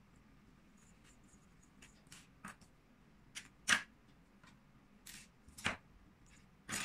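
Soft handling sounds of crochet work: scattered short clicks and rustles from the hook, yarn and toy being worked. The loudest come a little past the middle and near the end.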